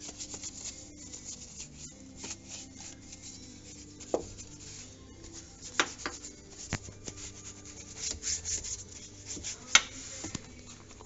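Stiff brush scrubbing dirt off a car's suspension parts and wheel well in quick, irregular scratchy strokes, with a few sharp knocks, the loudest near the end.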